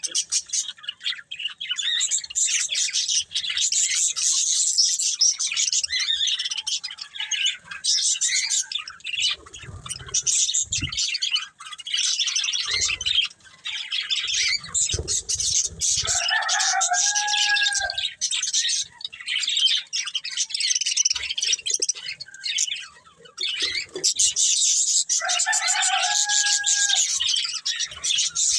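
Budgies chirping and chattering continuously in a fast, busy warble. Twice, a lower held call stands out, once around the middle and once near the end.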